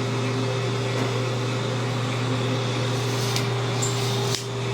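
Steady hum of a small electric motor, running evenly with a brief dip near the end.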